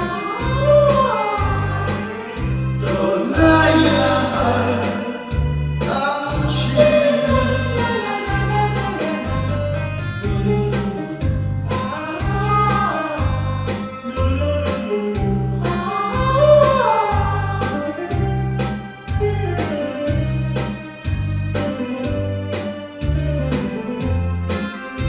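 A group of singers singing a Korean popular song together over recorded backing music with a steady bass beat.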